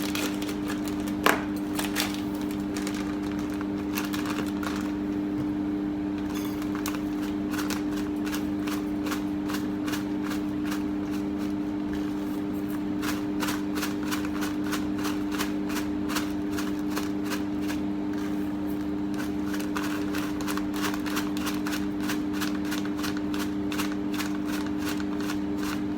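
A steady low hum with many small clicks and taps at an uneven rate while brown sugar is measured into the marinade, and one sharp knock about a second in.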